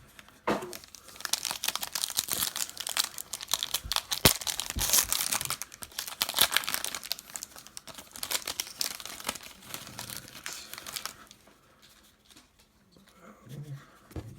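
Plastic trading card packaging being torn open and crinkled in the hands, a dense crackling with many small snaps. It runs for about ten seconds, then drops to quiet handling near the end.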